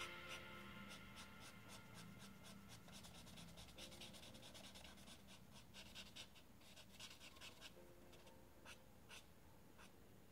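Art marker tip scratching across sketchbook paper in short, quick strokes, about four or five a second, growing sparser near the end as the shape is filled in.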